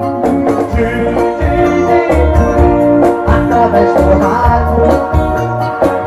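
Live band music, loud: electric guitars and keyboard playing a melody over a steady pulsing bass and drum beat.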